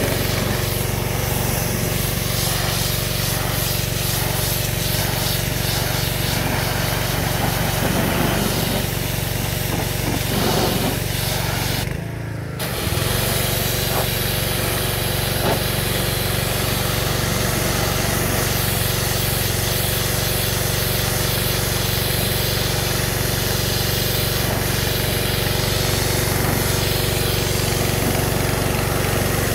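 Pressure washer running steadily, its lance blasting a hissing jet of water against a metal road sign over the constant hum of the machine's motor. The spray cuts out for a moment about twelve seconds in, then resumes.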